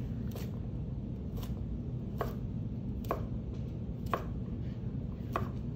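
Chef's knife cutting through a raw carrot onto a wooden cutting board, six separate knocks about a second apart: an oblique (roll) cut, the carrot turned between each angled slice.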